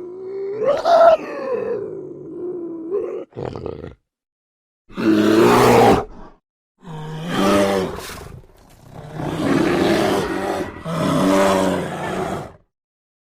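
A large wild animal calling: a drawn-out wavering call, then a series of rough roaring calls about a second each, with short silences between.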